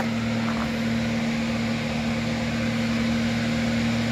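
Hino heavy truck's diesel engine pulling under load as it climbs toward the listener: a steady low rumble with a constant droning hum.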